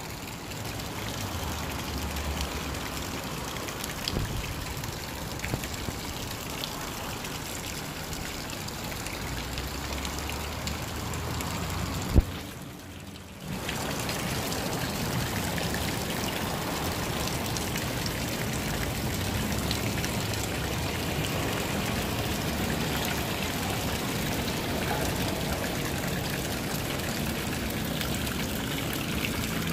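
Fountain water running and splashing, a steady wash of sound. About twelve seconds in there is one sharp click, and the water sound drops away for about a second before it returns.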